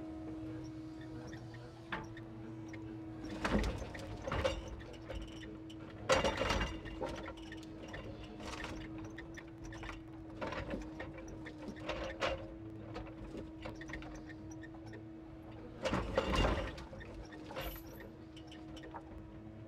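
Timber truck's loader crane loading logs: a steady hydraulic drone under repeated clatters of logs knocking and thudding onto the load. The heaviest clatters come about six seconds in and again near the end.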